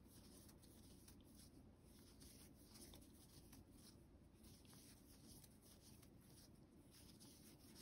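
Near silence, with faint, scattered soft rustles of cotton yarn drawn through stitches by a crochet hook as double crochet stitches are worked.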